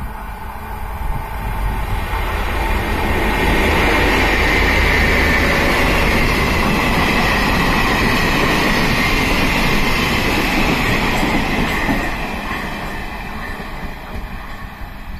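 Short freight train hauled by a diesel-electric locomotive passing on the rails: a low rumble of engine and wheels that grows over the first few seconds, stays loud with a high steady ring over it, and fades over the last few seconds as the wagons and caboose go by.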